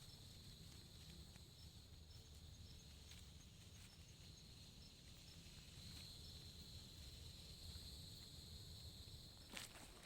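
Faint, steady high-pitched trilling of insects, with a few footsteps near the end.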